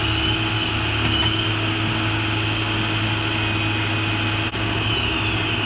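Electric bench drill-bit sharpener running, a steady hum with a high whine over it, while a drill bit held in an ER collet is sharpened; a short click about four and a half seconds in.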